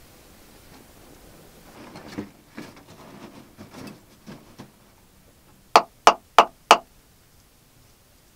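Four quick, sharp knocks of a bamboo stick struck against the packed-earth wall of a small underground tunnel, a little over three a second. Before them come scuffing and rustling as someone moves about on the earth floor.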